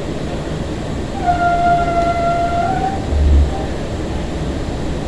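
Breda light-rail car running with a steady low rumble; its horn sounds one steady note for nearly two seconds about a second in, followed by a short low thump as the car jolts over the track.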